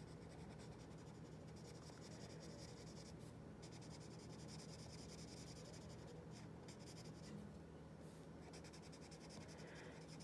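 Paper blending stump rubbing over graphite on drawing paper: a faint, steady rubbing as it pulls the pencil lead out from the lines to soften the shading.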